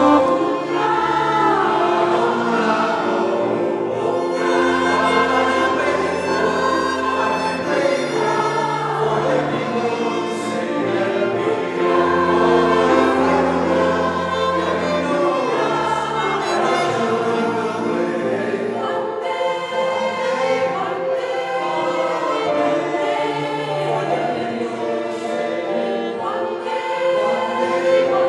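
Mixed choir singing in parts, accompanied by grand piano and violin. Long low held notes sound under the voices through the first half and drop out after about sixteen seconds.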